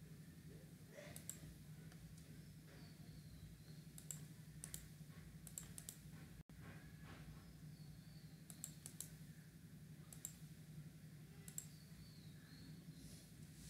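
Near silence: a low steady hum with faint, short clicks scattered through it, like computer clicks.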